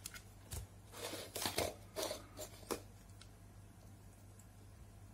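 Short rustles and light clicks of test probe leads being handled and touched against an LED lamp's chip board, clustered in the first three seconds, over a faint steady low hum.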